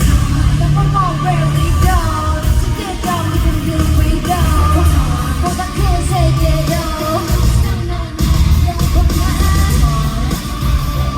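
K-pop girl group singing live over a loud, bass-heavy backing track, the vocal melody running on and off throughout.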